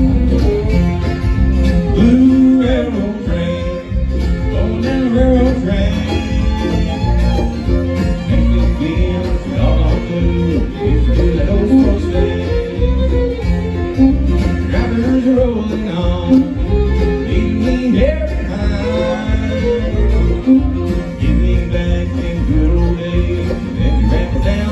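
Bluegrass band playing live: fiddle, mandolin, acoustic guitars and electric bass, with singing at times.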